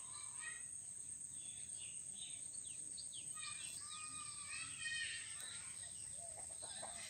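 Outdoor bird chirping: many short sloping calls, busiest around the middle, over a steady high-pitched whine and a low background hum.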